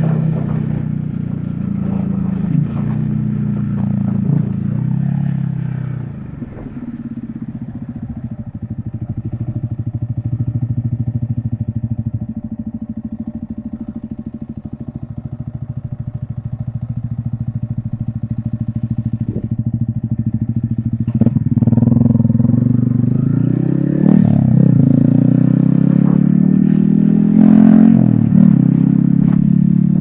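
Yamaha XSR155's single-cylinder engine running through a homemade aftermarket exhaust while riding. It eases off about six seconds in and runs low for a while, then pulls harder again from about twenty seconds, with two upshifts near the end.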